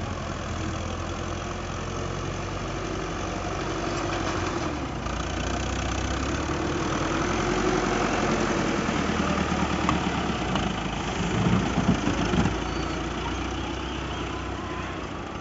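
Fiat 640 tractor's four-cylinder diesel engine running under load as its front blade pushes a pile of loose dirt, a steady low drone that grows louder as the tractor comes closer. A few louder, uneven pulses come about three-quarters of the way through.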